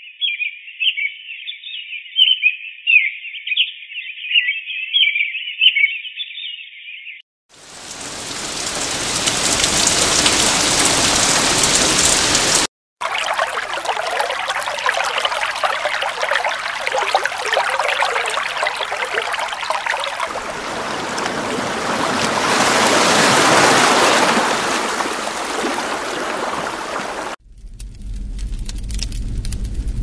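A run of nature-sound samples from a white-noise sound machine. It opens with about seven seconds of chirping birdsong, then a few seconds of rushing noise. After a brief break a brook babbles and rushes steadily, and near the end a bonfire starts crackling.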